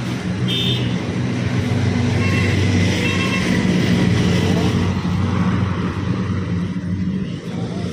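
Road traffic passing: a steady low engine drone that swells toward the middle and eases off later, with a few short high tones in the first few seconds.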